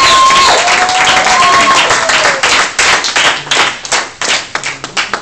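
A small crowd of children and adults applauding, with a few long high-pitched cheers over the clapping in the first two seconds. The applause thins to scattered claps toward the end.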